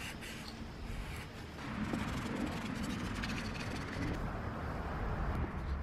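Paper towel rubbing and scrubbing around the gasket groove of an aluminium BMW M54 oil filter housing, wiping out old oil residue, with a few faint ticks of handling. The rubbing gets stronger about a second and a half in.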